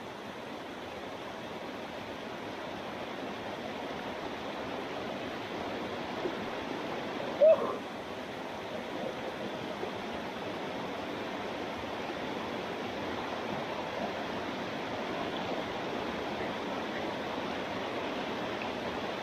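Small waterfall pouring into a rock pool, a steady rush of falling and splashing water. About seven and a half seconds in comes one short, loud vocal cry.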